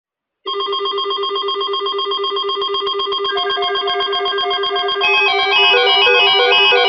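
Background music with a fast, even, plucked-sounding pulse, about eight notes a second. A melody line joins about three seconds in, and more parts come in at about five seconds, when it gets louder.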